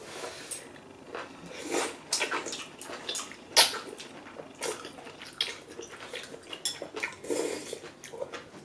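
Close-miked udon noodles being slurped from chopsticks: a run of irregular wet sucking slurps with chewing between them.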